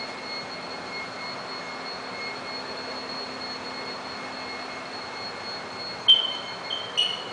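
Steady rushing hiss with a faint high whine, broken by two short, sharp high-pitched squeaks about six and seven seconds in.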